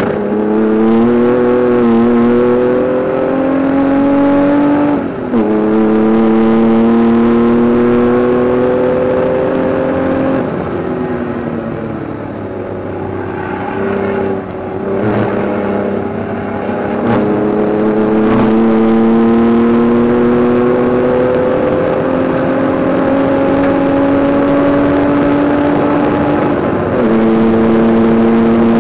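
Jaguar XJS race car's engine heard from inside the cabin, revs climbing under full throttle with a sharp drop at an upshift about five seconds in. It eases off for a few seconds in the middle, then pulls through a long steady climb in revs, and the revs jump up suddenly near the end at a downshift.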